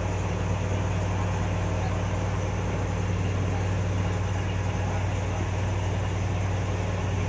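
Fishing boat's engine running steadily, a constant low hum with no change in speed.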